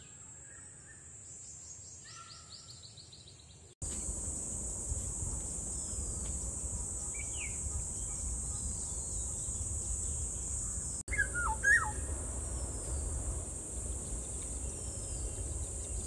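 Wild birds calling in trees: scattered short chirps, and a louder pair of calls a little past two-thirds of the way through. Under them a steady high-pitched hiss and a low rumble, which jump up abruptly about four seconds in.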